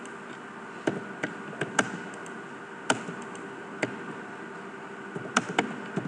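Computer mouse buttons and keyboard keys clicking at an uneven pace, with a quick run of keystrokes near the end as a command and a number are typed in, over a steady background hum.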